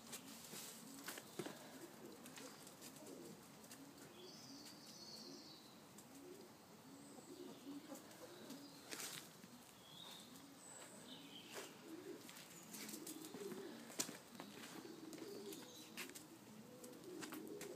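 Faint pigeon cooing, repeated low calls that come more often in the second half, with a few sharp clicks now and then.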